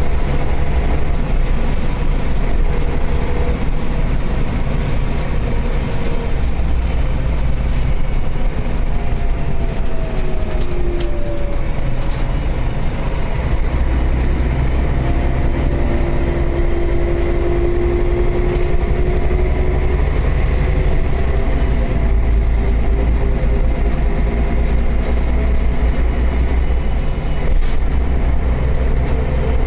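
City bus running on the road, heard from inside the cabin: a steady engine drone with a pitch that slowly rises and falls as it speeds up and slows, with a few light rattles.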